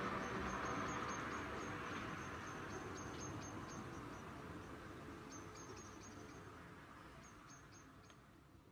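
Outdoor background noise fading out steadily, with short high-pitched chirps coming in small clusters about every two seconds.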